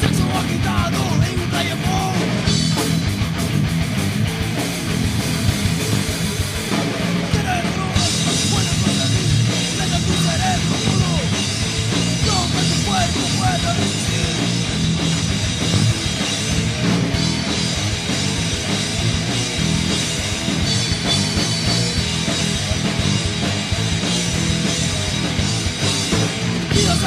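Rock band playing an instrumental stretch of a punk-rock song: distorted electric guitars, bass and drum kit at a steady loud level, in a rehearsal recording. The sound gets brighter about eight seconds in.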